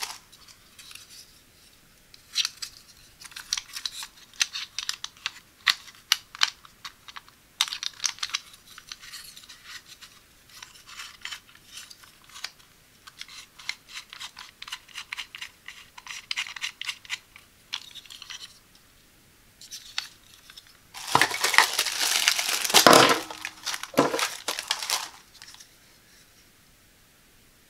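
Hard plastic parts of a ring-light phone-holder clamp being handled and adjusted: many small clicks, taps and ticks. About three quarters of the way through comes a few seconds of loud crinkling as plastic bags are opened.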